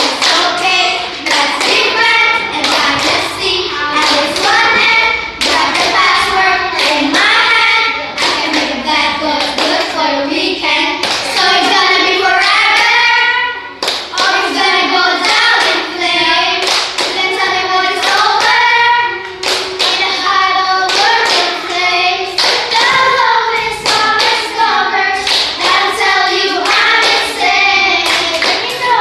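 Group of children singing a song together, accompanied by rhythmic hand clapping, with a short break in the singing about halfway through.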